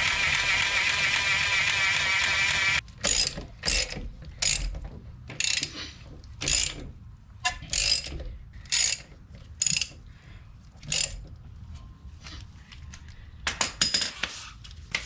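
A steady whirring tool that cuts off about three seconds in, then a hand ratchet clicking in short, uneven strokes as lug nuts are run down onto the wheel studs.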